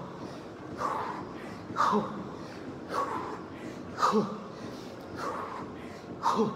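Hard, labored breathing of a man doing push-ups late in a 300-rep set, a forceful breath about once a second.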